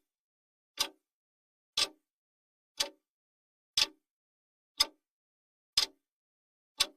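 Clock ticking sound effect: sharp, even ticks, one per second.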